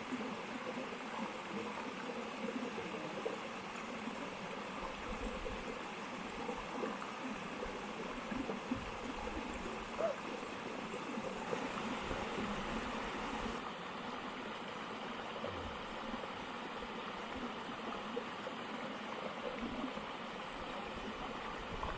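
Small waterfall splashing steadily into a rock pool.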